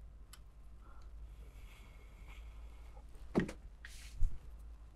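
Quiet workbench with a few faint clicks and taps of handling, the loudest about three and a half seconds in, over a low steady hum.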